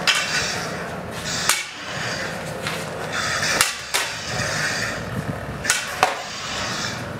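Combat lightsaber blades clacking against each other in sparring: a handful of sharp strikes at irregular intervals, two of them in quick pairs, over a steady hiss.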